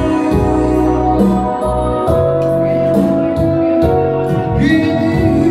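Loud music over a bar's sound system: a song with long held, organ-like chords.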